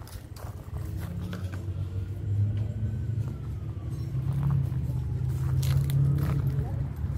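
Low rumble of a motor vehicle's engine running, growing louder over the seconds, with a few crunching footsteps on gravel.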